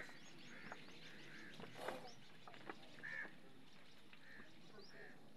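Faint bird calls: short arching chirps repeating every second or so, with a soft knock about two seconds in.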